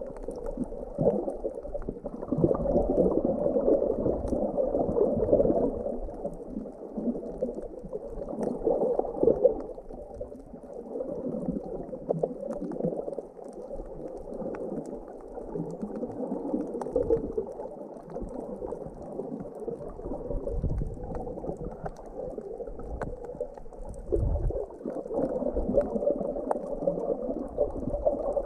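Muffled underwater sound of water sloshing and gurgling around a submerged camera, dull and lacking all high tones, swelling and easing in loudness.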